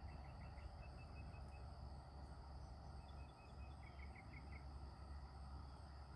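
Faint outdoor insect chorus: a steady high-pitched drone, with two short runs of quick chirping notes. A low steady rumble runs underneath.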